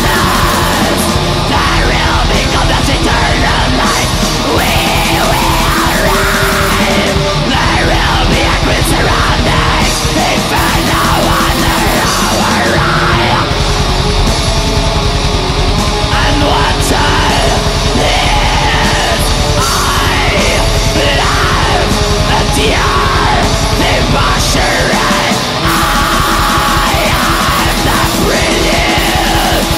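Early-2000s Portuguese black metal recording: dense distorted guitars and fast drumming with harsh vocals over them, steady and loud.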